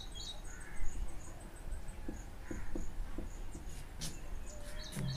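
High-pitched chirping repeated at a steady pitch, quick at first and then slowing to two or three chirps a second, with a few faint taps and scrapes of a marker on a whiteboard.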